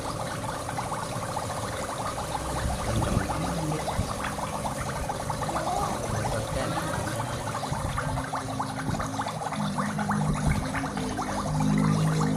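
Gas blown hard through a refrigerator's pipework, giving a steady crackling, bubbling hiss with a low hum beneath it.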